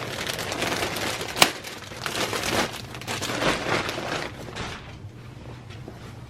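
Plastic wrapping and a plastic bag crinkling and rustling as they are handled and pulled off, with one sharp crackle about a second and a half in. The crinkling fades to faint handling noise after about five seconds.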